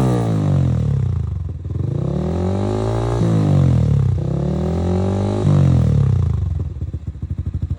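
Yamaha Sniper 155R single-cylinder four-stroke engine revved through an UMA Racing Pipe v3 aftermarket exhaust. The revs fall off, climb slowly and drop twice, then settle back to a lumpy idle near the end.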